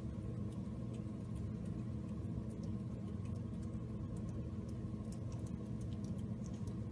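Steady low hum with faint, scattered small ticks and clicks as kittens' paws and claws shift on a blanket, the clicks coming more often in the second half.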